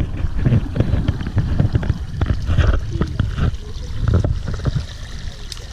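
Wind buffeting the microphone: a loud, uneven low rumble broken by scattered short knocks.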